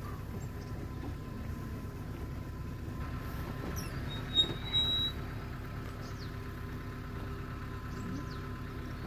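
Safari jeep's engine idling with a low, steady rumble. About four seconds in, a brief high-pitched chirp stands out above it.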